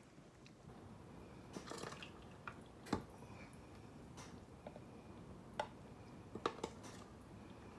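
Quiet kitchen sounds of thawed peaches being spooned into a baking dish: a few scattered clicks and knocks of a utensil against the dish. The loudest knock comes about three seconds in, with a quick pair of clicks near the end.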